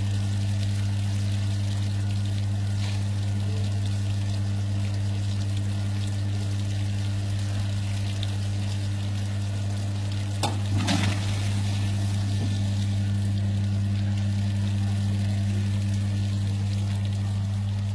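A DPF cleaning machine runs with its pump motor humming steadily while water sprays and splashes over a diesel particulate filter in the wash tank. A brief clatter of knocks comes about ten seconds in.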